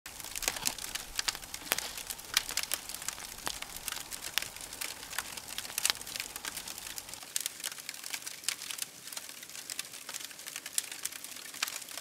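Open wood fire crackling, with frequent irregular sharp pops and snaps over a soft hiss.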